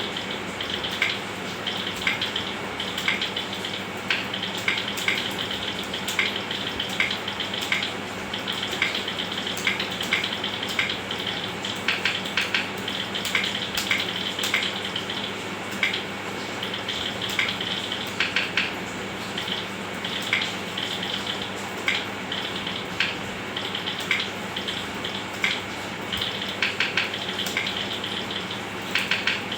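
Keyboard typing: a quick, irregular run of key clicks, several a second, with faster bursts now and then, over a steady hiss.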